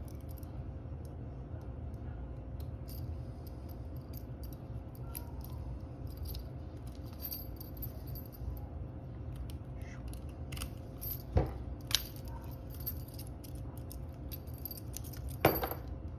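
Handling of a padlock and its key: faint light clicks and rattles, with a few sharper metallic clicks in the second half, over a steady low hum.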